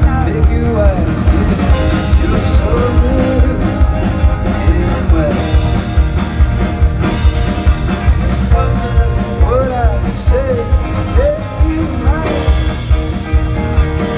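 Live folk-rock band playing a stretch of a song without lyrics, with a steady beat and a bending melodic lead line over it.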